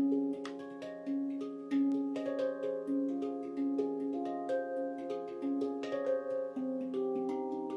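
Stainless steel Veritas handpan in F Integral tuning, played by hand: a steady flow of quickly struck notes, each ringing on and overlapping the next.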